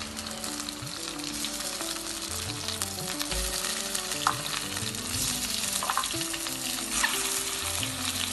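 Hot oil and crushed garlic sizzling in an aluminium kadai as peeled boiled eggs are put in, with a few sharp knocks against the pan.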